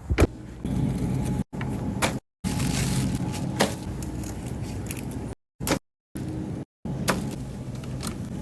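Car running, a steady low hum of engine and road noise, cut off suddenly several times, with a few sharp clicks and knocks.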